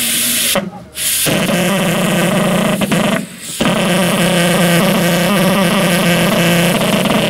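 Pulse jet engine of an RC speed model running on its starting stand: a loud, steady, rasping buzz. After a brief hiss it takes hold about a second in and breaks off for a moment around three seconds in.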